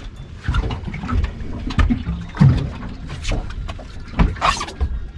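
Water lapping and slapping against the aluminium hull of a small stationary fishing boat, over a low wind rumble. Irregular knocks and bumps come from gear being handled on board, with a brief rustling burst near the end.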